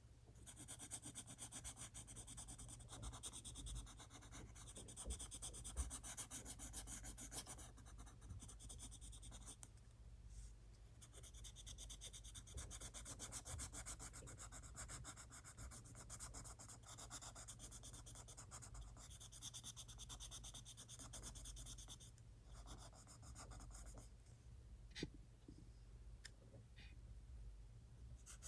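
Colored pencil shading on sketchbook paper: faint, quick back-and-forth scratchy strokes with a few short pauses, and a couple of small clicks near the end.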